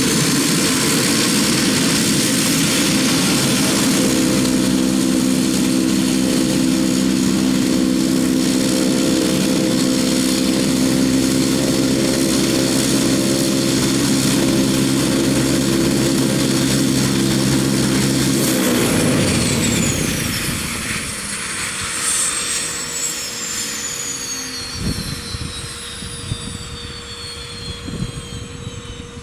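Pilatus PC-12's Pratt & Whitney Canada PT6A turboprop running at ground idle with the propeller turning, then shut down: a little past halfway the steady engine sound drops away and a high turbine whine falls in pitch as the engine and propeller spool down. There are a few dull thumps near the end.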